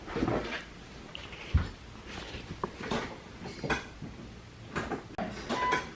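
Irregular knocks, clicks and clatters of things being handled, with one heavier low thump about one and a half seconds in.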